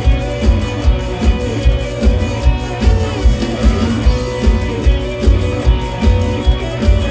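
Live band music from a Thai Isan stage show, loud, with a steady, driving drum beat.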